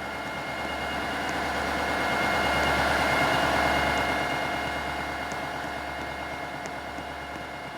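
BNSF freight train of stack cars rolling past, its rolling noise and steady high ringing tones swelling to a peak about three seconds in and then slowly fading, with a few sharp clicks near the end.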